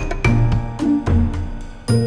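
Background music: a tune of held pitched notes over bass notes, with a regular beat.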